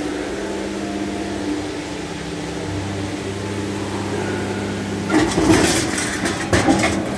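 Erbend EMS 3020 motorized guillotine shear running with a steady electric-motor hum. About five seconds in, the shear cuts and the cut-off sheet metal drops behind the blade, giving a burst of loud metallic clatter and several rattling knocks.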